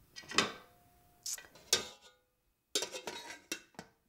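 Metal pressure cooker pot and lid being handled: a series of knocks and clinks, some leaving a short ringing tone, with a brief pause partway through.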